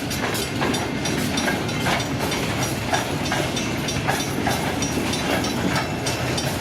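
Escanaba & Lake Superior freight train cars rolling past at close range: a steady rumble with wheels clicking over the rail joints in a regular rhythm, about two to three clicks a second.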